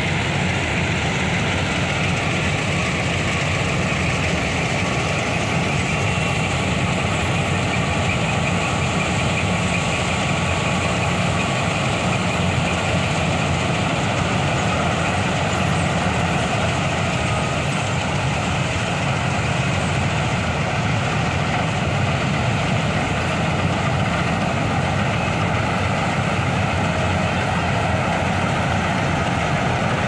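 Dasmesh tractor-mounted combine harvester running steadily as it cuts and threshes ripe paddy: an unbroken engine and machinery drone with a faint steady whine above it.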